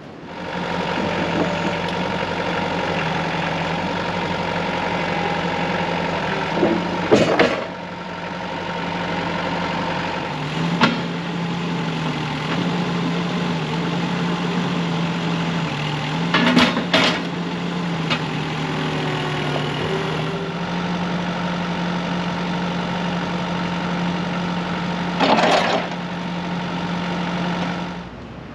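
An engine running steadily at a constant speed, its pitch dipping slightly now and then. Short clunks come about 7, 11 and 25 seconds in, with a double clunk near 17 seconds.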